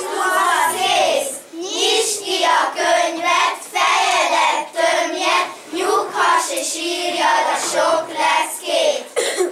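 A group of children singing a Hungarian children's song together in unison.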